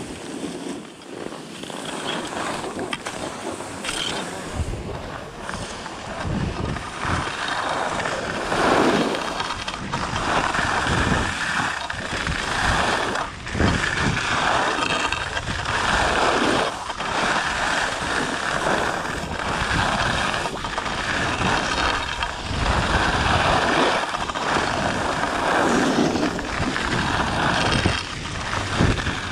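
Skis scraping and hissing over packed snow turn after turn, with wind rushing over the microphone. It starts quieter, then from about five seconds in the scraping swells and fades every second or two as each turn is carved.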